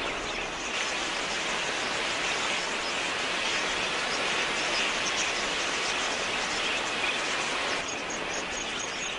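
A large flock of budgerigars chattering: a dense, steady hiss of many small chirps. Near the end a faint, rapid, high ticking joins it.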